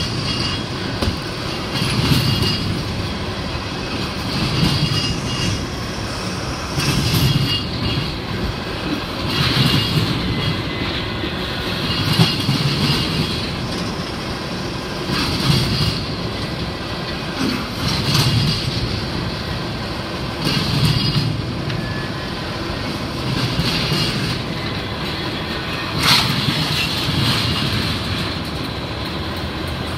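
Double-stack intermodal freight train's well cars rolling past, steel wheels clacking on the rails, with a louder swell of wheel noise about every two and a half seconds.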